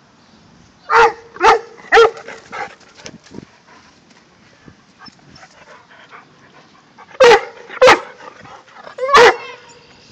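Alpaca alarm calls: short, shrill, bark-like cries, three in quick succession about a second in, then three more in the second half.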